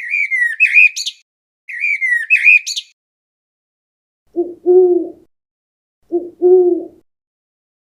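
A bird calling twice with high, quick warbling phrases, then two low two-note hoots, each a short note followed by a longer one.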